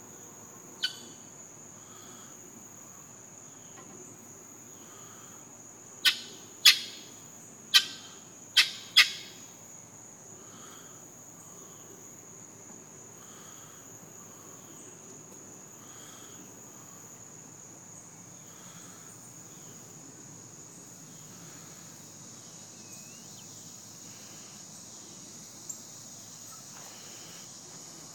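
A guinea fowl gives short, sharp, loud calls: one about a second in, then five close together between about six and nine seconds. A steady high-pitched insect chorus runs underneath throughout.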